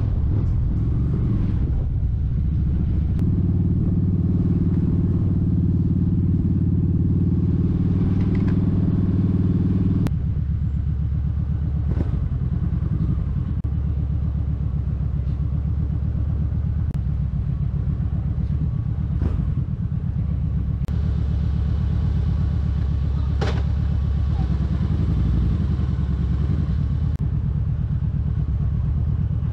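Kawasaki Vulcan 1700 Vaquero's V-twin engine running at low street speed, a steady low rumble heard from on the bike. The engine note changes abruptly about ten seconds in, and a few short clicks come through.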